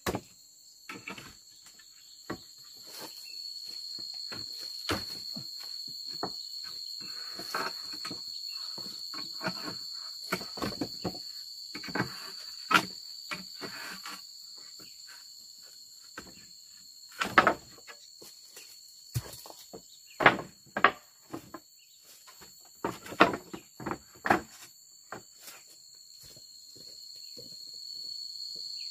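Scrap building-timber offcuts knocking and clattering against each other as they are handled, sorted and stacked: irregular wooden knocks, loudest in a few clusters in the second half. Insects drone steadily and high-pitched behind them.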